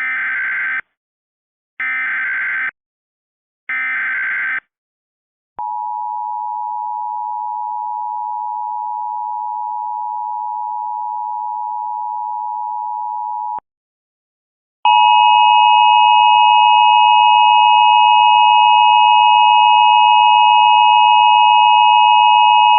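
Emergency Alert System header: three short bursts of warbling digital data tones (the SAME header), then the EAS two-tone attention signal held steadily for about eight seconds. After a short pause, a second, louder steady alert tone with a higher overtone starts about fifteen seconds in.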